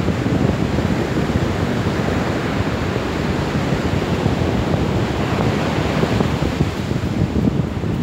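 Ocean surf washing onto a sandy beach, a steady rushing noise, with wind buffeting the microphone as a fluttering rumble underneath.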